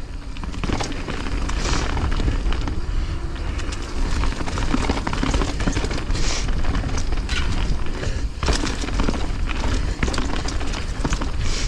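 Wind buffeting a helmet-mounted camera's microphone as a mountain bike rolls along a dirt singletrack, with tyre noise over dry leaves and many short clicks and knocks from the bike rattling over the trail.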